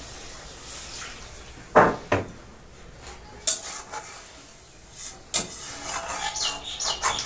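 Metal cookware and utensils knocking and clinking: two loud knocks about two seconds in, a couple of single knocks after, and a run of quicker ringing clinks near the end.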